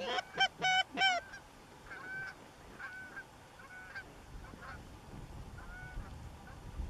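Geese honking: four loud honks in quick succession in the first second or so, then fainter honks scattered through the rest.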